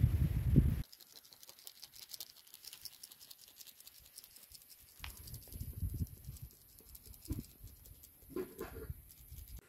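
Spice sprinkled from small containers onto raw chicken in a wire grill basket: a light, fast patter of fine ticks, with a few soft low handling thumps. It opens with a loud low rumble that cuts off abruptly just under a second in.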